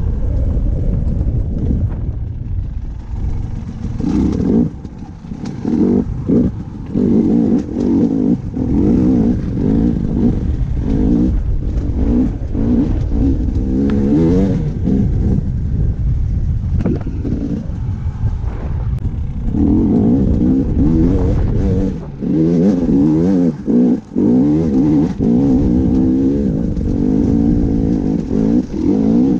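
Dirt bike engine being ridden, its pitch rising and falling continuously with the throttle, dropping away briefly a few times.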